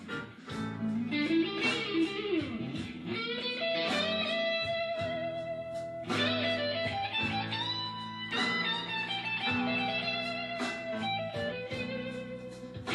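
Fender Stratocaster electric guitar playing a blues lead, with bent notes in the first few seconds and a held note with vibrato around the middle.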